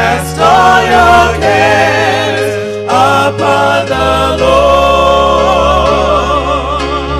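Gospel music: a choir singing, the voices wavering in vibrato, over held bass notes that change every second or two.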